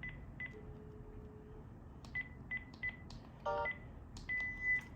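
Telephone keypad beeps as a number is dialed: a string of short high beeps about a third of a second apart, ending in a longer beep. A steady lower tone lasts about a second near the start.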